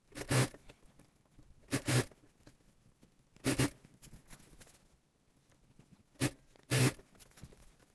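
Industrial sewing machine running in short bursts, about five, each under half a second, stopping between them as the fabric is repositioned under the needle.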